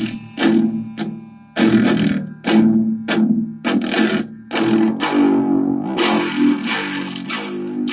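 Down-tuned electric guitar through heavy distortion, playing choppy, stop-start chugging riffs with short silences between the hits.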